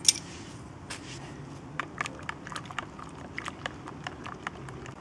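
A metal spoon stirring and scraping in a metal camping mug: one sharp clink at the very start, then irregular light clinks and scrapes.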